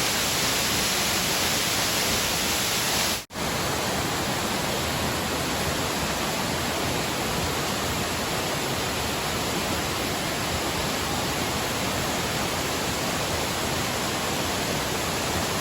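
Waterfall's water rushing, a steady even noise. It cuts out for an instant about three seconds in and then carries on unchanged.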